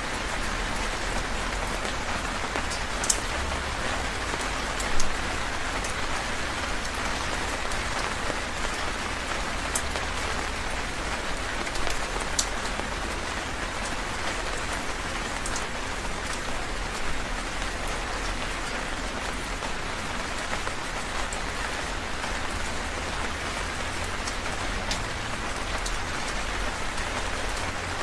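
Heavy rain falling steadily, with now and then a single louder drop striking close by.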